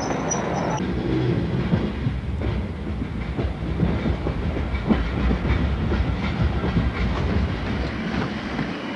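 Shunting train rolling along the track: a steady low rumble with rapid, irregular clatter of wheels on the rails. A thin high wheel squeal dies away about a second in.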